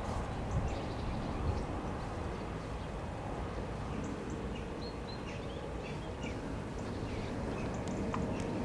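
Outdoor ambience: a steady low rumble with faint, short bird chirps scattered through it, most of them around the middle and again near the end.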